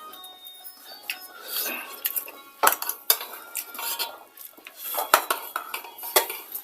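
Dishes and cutlery clinking during a meal of chicken and rice, with several sharp clinks about two and a half, three, five and six seconds in.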